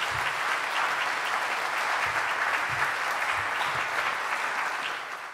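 Audience applauding, a dense even clatter of many hands clapping, tapering off near the end.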